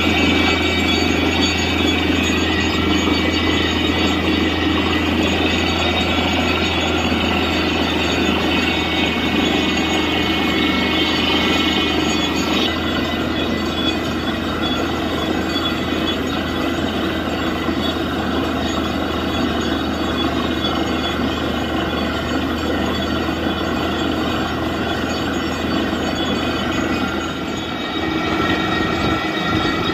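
Truck-mounted borewell drilling rig running steadily, its engine and air compressor droning while compressed air blows water and rock cuttings out of the borehole. The gushing water shows the bore has struck water.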